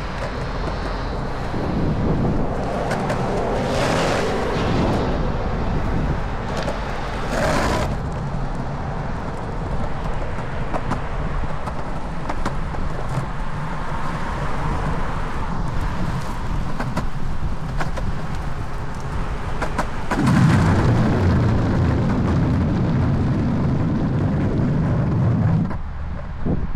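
Longboard wheels rolling over a concrete sidewalk, a steady rumble with clicks as they cross the slab joints. The rumble grows louder for several seconds near the end. Traffic passes on the road alongside.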